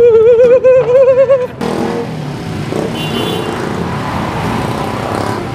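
A loud, held, wavering voice-like note cuts off suddenly about a second and a half in. After it comes the steady noise of city street traffic, with cars and motorcycles running.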